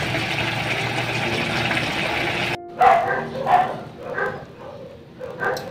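A pot of chicken feet adobo boiling, a steady bubbling hiss that stops abruptly about two and a half seconds in. Then a dog barks several times in short barks, a little over one a second.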